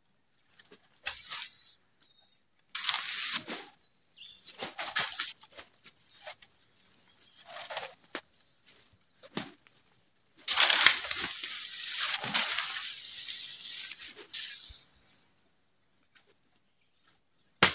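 Bamboo leaves and brush rustling in bursts as a bamboo stalk is pulled and pushed through the thicket, with the longest spell of rustling from about ten to fifteen seconds in. A single sharp knock comes at the very end.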